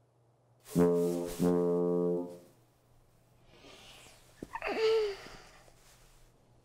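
Brass horn sounding two loud low blasts on the same note, a short one and then a longer one of about a second. A few seconds later there is a click and a brief higher sound that bends in pitch.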